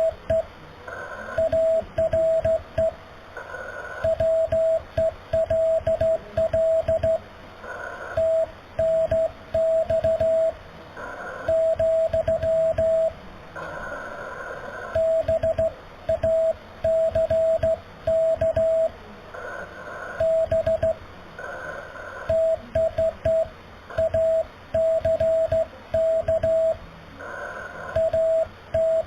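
Slow Morse code (CW) on a ham radio transceiver: one steady mid-pitched tone keyed on and off in dots and dashes, in groups with short pauses between characters and words. Crackling static and hiss fill the gaps.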